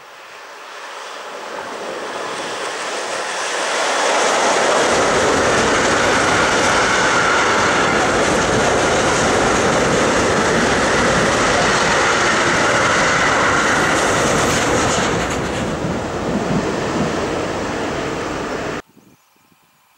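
Freight train of tank wagons hauled by an E483 electric locomotive running past: the rolling noise builds over the first few seconds as it approaches, then holds as a loud, steady rumble and clatter of wheels on rail while the wagons go by. It cuts off suddenly near the end.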